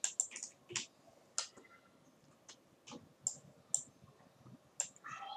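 Computer mouse clicking: a series of sharp, irregularly spaced clicks while spline vertices are selected and moved in 3D modelling software.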